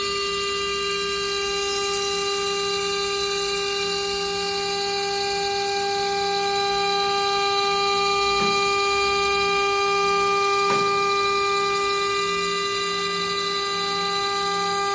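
Stone-cutting CNC machine running steadily: a constant whine made of several steady pitches, with two faint clicks partway through.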